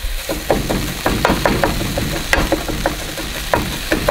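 Pork pieces frying in a non-stick pan, crackling and spattering in irregular sharp pops several times a second, while chopsticks press the meat against the pan.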